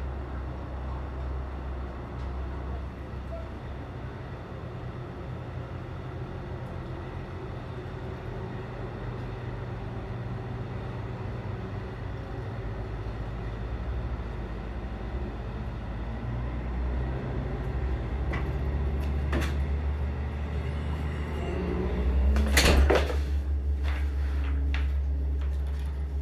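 A diesel engine rumbling low and steady with a slow pulsing beat, heard muffled through window glass. A short burst of knocks and rattles comes about 22 seconds in.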